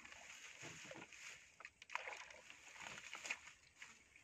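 Faint water sloshing and splashing around a small boat working through shallow water, with a few light knocks.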